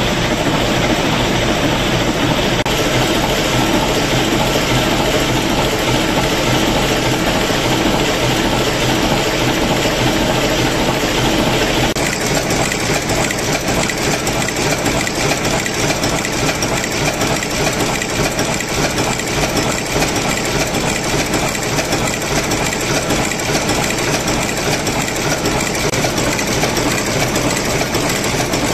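Large vintage Dutch multi-cylinder diesel engine running steadily. About twelve seconds in the sound changes abruptly to a closer, busier mechanical ticking of the engine's valve gear and fuel pumps.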